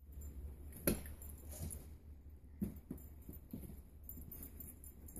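Faint footsteps and soft patter on carpet from a toddler and a small dog walking along a hallway, with a few light knocks scattered through, the clearest about a second in and again just past halfway.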